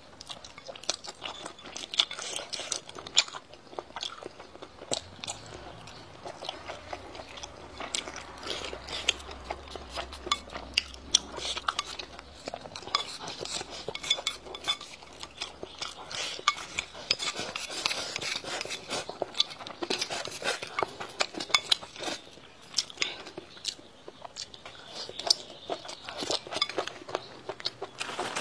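Close-miked eating: chewing and mouth smacking, with many sharp clicks of chopsticks tapping and scraping against the bowl.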